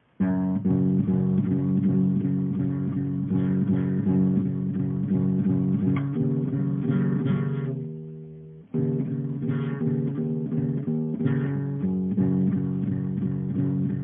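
Guitar music: plucked notes over a low bass line. It starts abruptly, fades away about eight seconds in, and a new passage starts sharply just under a second later.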